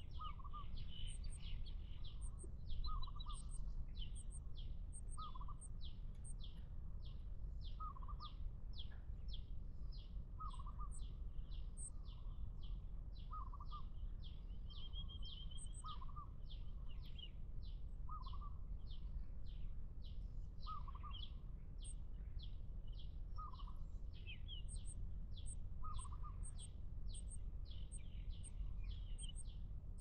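Birds calling in the surrounding scrub: a short call repeating every two to three seconds over a steady run of high chirps about twice a second, with a steady low rumble of background noise underneath.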